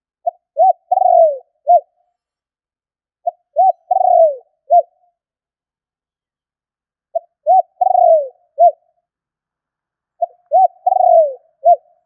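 Caged decoy spotted dove cooing: four phrases a few seconds apart. Each phrase is a couple of short coos, a longer coo that drops in pitch, and a short closing coo.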